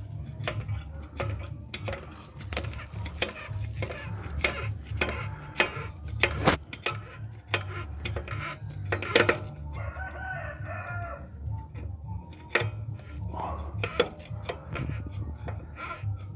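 Irregular metallic clicks and knocks of a tool turning the brake-shoe adjuster on a JAC truck's rear drum brake, backing off the adjustment so the drum will come loose. A rooster crows once, about ten seconds in.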